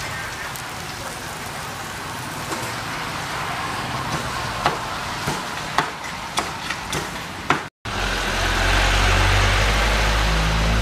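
Street ambience with traffic noise and a run of sharp clicks in the middle; after an abrupt cut near the end, a louder steady low rumble.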